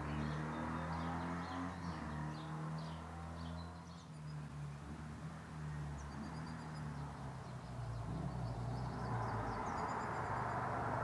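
Distant vehicle engine droning; it fades about four seconds in, then builds again toward the end, with birds chirping throughout.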